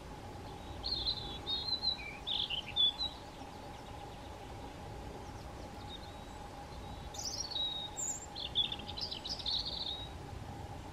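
European robin singing two short phrases of high warbling notes, one about a second in and one about seven seconds in, over a steady faint hum.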